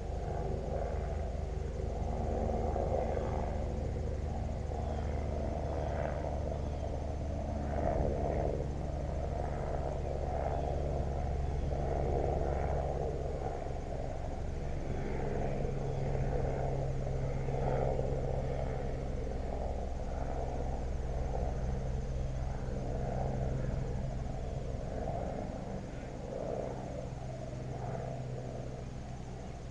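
A steady low motor-like hum, its pitch shifting slightly about halfway through, under an uneven fluttering rumble.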